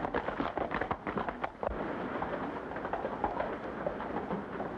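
Horses' hoofbeats on a dirt street as a group of riders rein in: a dense clatter of hooves for about the first second and a half, then only scattered steps over the hiss of an old film soundtrack.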